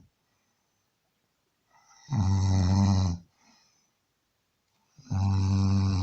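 A man snoring, two long snores about three seconds apart, each a steady low-pitched drone lasting about a second.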